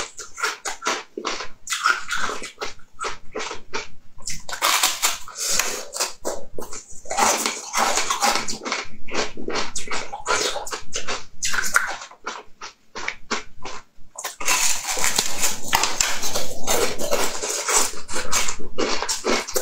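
Close-up crunching and chewing as a person bites into and eats a hard, translucent blue slab: crisp, crackling crunches in dense runs, sparser clicks at first and a short pause a little past halfway.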